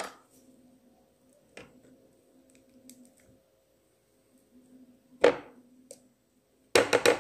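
A metal spoon clicking and scraping against a plastic butter tub and mixing bowl while butter is scooped out: a sharp knock about five seconds in and a quick run of four knocks near the end, over a faint steady hum.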